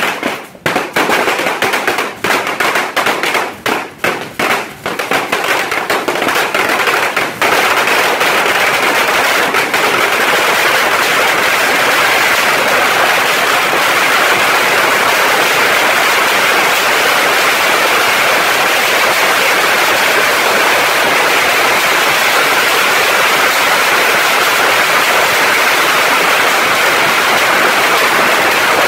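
Masses of bottle rockets fired from a beehive rocket rack: rapid separate cracks and pops at first, then from about seven seconds in a dense, unbroken barrage of crackling and whooshing that stays loud and steady.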